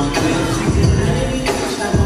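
Loud dance music with a steady, heavy bass beat.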